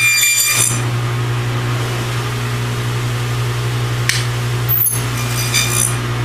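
Table saw running with a steady hum, with two short bursts of high ringing, one at the start and one about five and a half seconds in.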